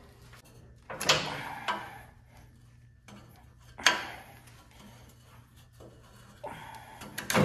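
Metal clanks and scraping from hand tools working on the front PTO assembly of a Cub Cadet garden tractor, with a few sharp knocks, two of them loud, about a second in and near four seconds.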